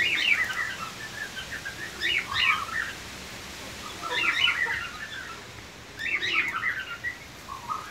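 Young chickens cheeping while they peck at their feed, in four short bouts of high chirps about two seconds apart.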